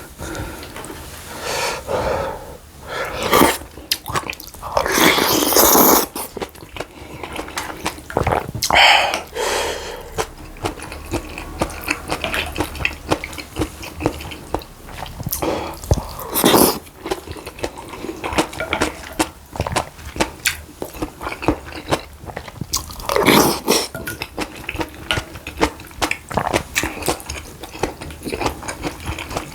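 Close-miked eating sounds: a person chewing and biting food, with many short crunchy clicks and a few louder swells of noise.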